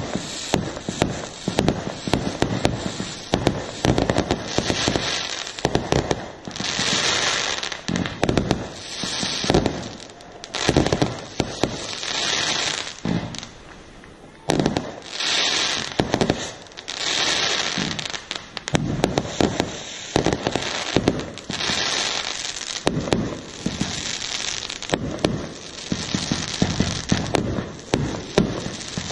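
Aerial fireworks going off one after another: sharp bangs of shells bursting, with stretches of crackling hiss from the burning stars between them. There is a short lull about halfway through before the bangs pick up again.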